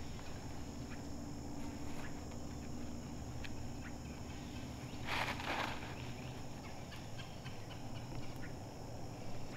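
Quiet scrub ambience: a steady high buzz with scattered small crackles and ticks of dry leaves and twigs, and one louder rustle about five seconds in.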